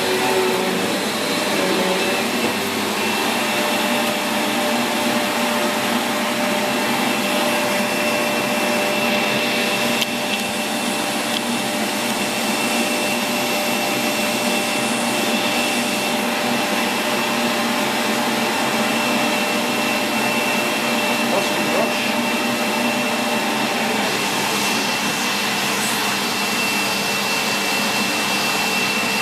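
Sanyo SCA-7AX upright bagged vacuum cleaner running steadily, its motor note a constant whine. The lower tones shift in the first couple of seconds, and there is a single click about ten seconds in.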